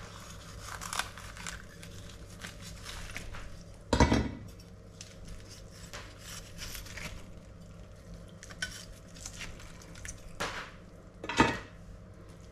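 A kitchen knife cutting and scraping the crackling skin off a roast pork belly in a metal roasting tray: light scrapes and clinks throughout, with two sharp knocks, one about four seconds in and one near the end.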